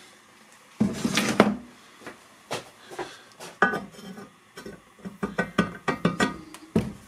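New wheel bearing being pushed by hand into the bore of a cast-iron wheel-bearing housing held in a vise: a scrape about a second in, then a string of short metal clicks and clinks as the bearing is worked into the bore.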